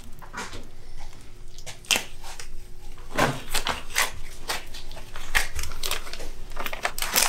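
Aluminium foil tape and plastic sheeting being peeled away and crumpled by gloved hands: an irregular run of crackles and crinkles.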